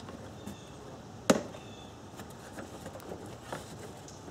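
A single sharp plastic snap about a second in, as a plastic retaining tab on the car's cowl trim is pulled back and released, followed by a few faint ticks of the trim being handled.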